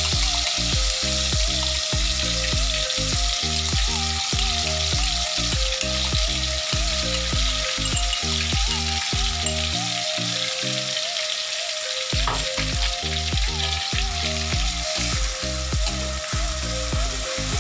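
Coarsely blended chili spice paste sizzling steadily as it goes into already-hot oil in a wok, the start of frying the sambal paste. A spatula stirs it near the end.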